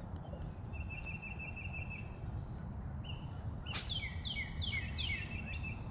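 A songbird singing: a fast trill about a second in, then, past the middle, a run of about five quick notes that each sweep down in pitch, with a trill beneath them. A steady low rumble underlies it all.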